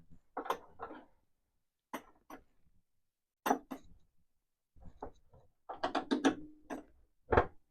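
Hand tools on metal: a wrench clinking and scraping against a bolt and the steel mower parts in short, irregular bursts, busiest near the end.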